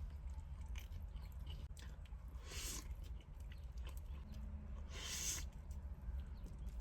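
A person chewing and biting hot fried chicken close to the microphone: small wet mouth clicks, with two louder bites about two and a half seconds apart, over a steady low hum.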